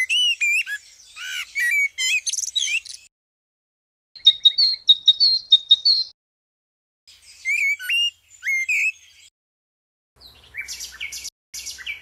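Songbirds singing in turn. A common blackbird sings a varied phrase of gliding notes. After a pause a great tit gives a rapid run of repeated high notes, and then further short song phrases follow, the last with rattly strokes near the end.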